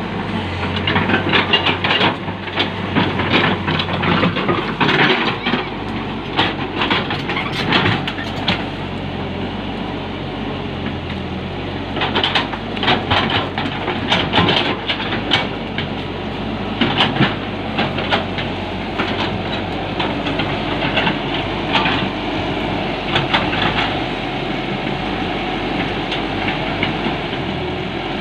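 Caterpillar 312 hydraulic excavator digging: its diesel engine runs steadily under load, with bursts of metallic clanking and rattling through the first eight seconds or so and again from about twelve to twenty-four seconds in.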